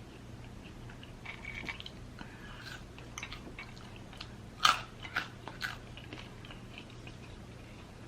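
A person biting and chewing food close to the microphone, with soft wet mouth sounds and a few sharp crunches about halfway through, the first the loudest, over a faint low hum.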